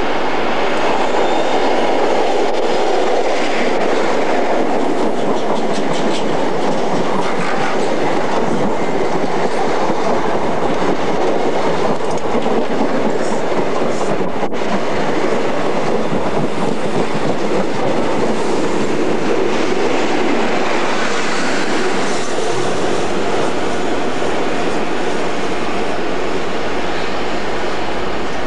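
An InterCity 125 high-speed train passing close by, with a loud steady rumble of the coaches on the track. A few sharp clicks from the wheels come in the first half.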